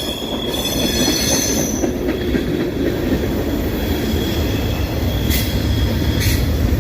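Freight cars of a passing CSX train rolling by, steel wheels rumbling on the rail with a steady high-pitched wheel squeal, strongest in the first two seconds. Two short hissing screeches come near the end.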